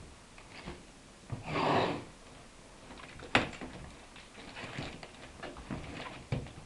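Packing tape pulled off its roll and laid along the edge of a cardboard carton: a short rasp of tape unrolling about a second and a half in, then a sharp tap and light knocks of hands on the cardboard.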